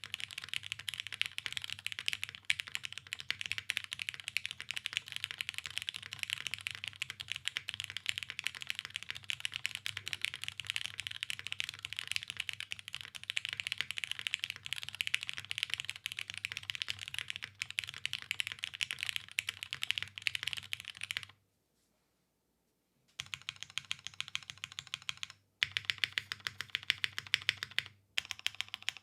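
Fast typing on a custom Tomo mechanical keyboard with lubed, filmed Cherry MX Black linear switches in an undampened top-mount aluminium plate, under GMK keycaps. A dense, continuous stream of keystrokes stops for about two seconds roughly three-quarters of the way through, then resumes in shorter runs with brief pauses.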